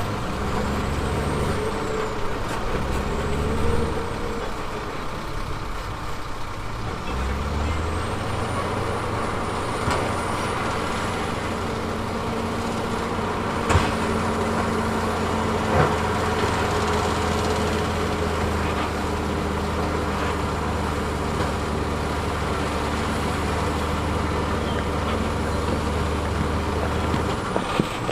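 Heavy diesel earthmoving machinery running steadily under load. Its engine note dips and climbs back up about seven seconds in, and two sharp knocks come around the middle.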